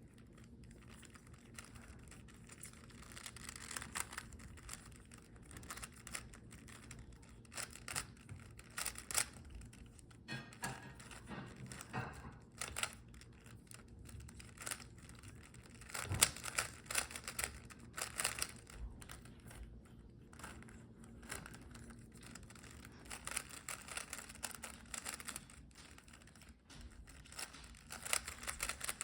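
A plastic Rubik's Cube being turned quickly by hand: irregular bursts of rapid clicking and clacking as the layers turn, through a timed solve.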